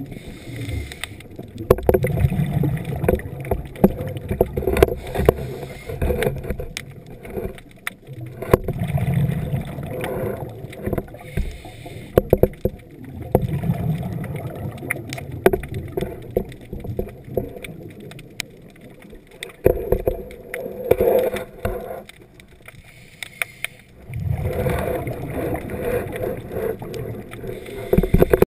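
Exhaled bubbles from a scuba diver's regulator, heard underwater, coming in bursts every few seconds with quieter gaps between. Short sharp clicks crackle throughout.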